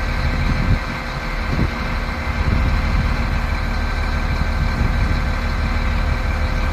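Heavy construction machine's diesel engine running steadily, a deep rumble, with a couple of brief knocks in the first two seconds.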